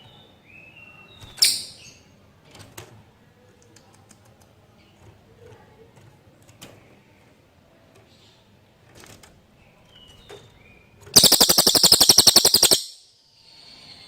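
Cililin songbird calling: a few scattered short chirps, then a loud, very rapid rattling trill lasting about a second and a half, near the end.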